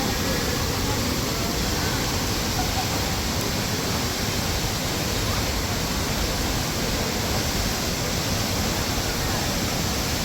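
Waterfall's water rushing in a steady, loud, unbroken wash of noise.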